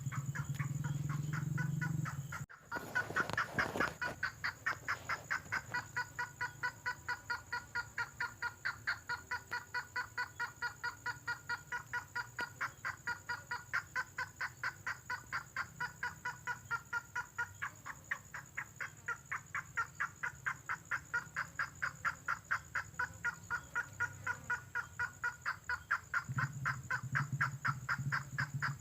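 Lure recording of the bird called tengkoah merah: a long run of rapid, evenly repeated call notes, about four to five a second, after a sudden cut a couple of seconds in. A low hum sits under it at the start and again near the end.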